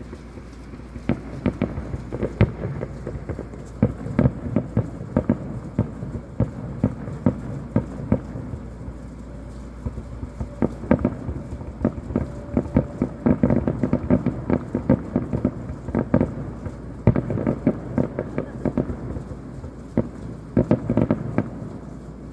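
Distant fireworks going off: a dense, irregular run of bangs and crackles, thickening into rapid clusters in the second half.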